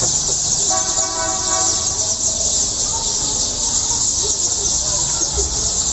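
Dense chorus of many sparrows chirping at once, a continuous high twittering. About a second in, a steady pitched tone, like a distant horn, sounds for roughly a second over it.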